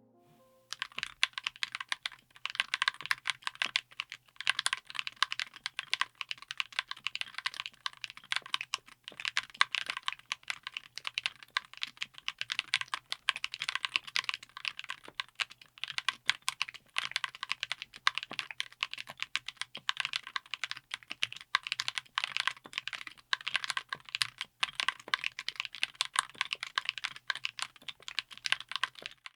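Fast, continuous typing on a mechanical keyboard fitted with Akko Flash magnetic linear switches: a rapid run of keystroke clacks that starts about a second in and stops just before the end.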